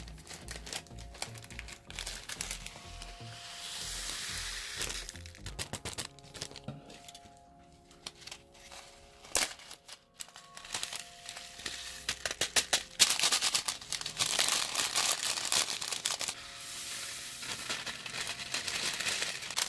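Small polystyrene foam beads being poured in, with plastic crinkling, in two long spells of dense crackling over background music.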